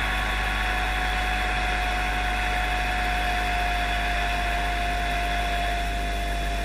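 Stadium crowd noise, a steady dense din from the fans, with one long held tone running through it and sagging slightly in pitch.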